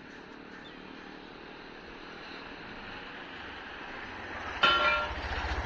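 A motor vehicle's engine growing louder as it approaches, with a sudden short, loud tone near the end, then a low pulsing engine rumble.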